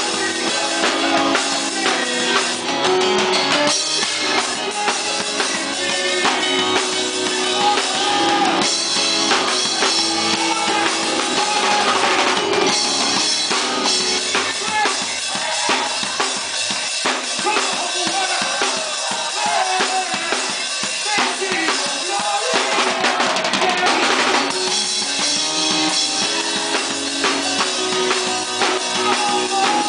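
Drum kit played live with a band: busy snare, bass drum and cymbal hits without a break, over held pitched notes from the other instruments.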